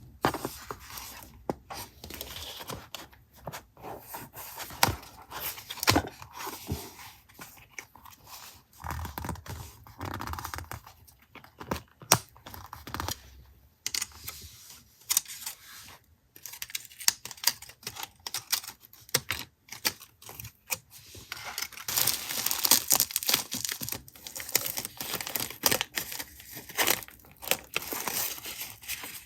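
Paper and packaging handled close up: irregular tearing and crinkling with scattered taps and clicks, loudest near the end.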